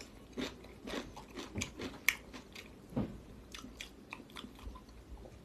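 A person biting and chewing raw cucumber: irregular crisp crunches, with louder crunches about two and three seconds in.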